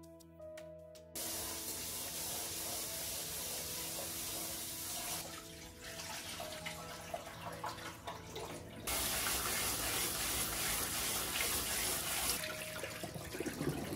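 Kitchen mixer tap running into a rice cooker's inner pot while rice is washed by hand. The water starts about a second in, eases off for a few seconds in the middle, runs strongly again and stops near the end.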